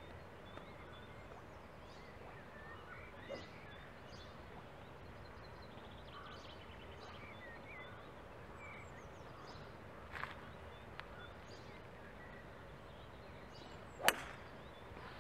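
A golf club strikes the ball once near the end, a single sharp click, over quiet open-air background with faint bird chirps. A fainter click comes about ten seconds in.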